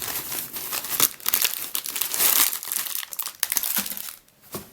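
Packaging wrapping crinkling and rustling as it is handled and pulled open, in a dense run of crackles that dies away near the end.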